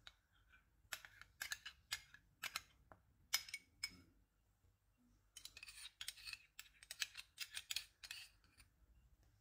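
Light clicks and scrapes of a spoon and small glass dishes against a ceramic bowl as sauce ingredients are scraped in: a scatter of sharp taps in the first few seconds, then after a short pause a denser run of clicking scrapes.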